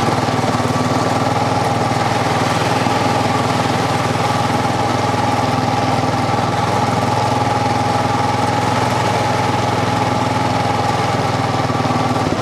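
ATV engine running at a steady, unchanging speed.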